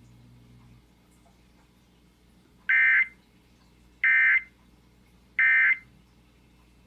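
Emergency Alert System End of Message (EOM) code: three short bursts of high-pitched digital data tones, a little over a second apart, signalling that the alert has ended.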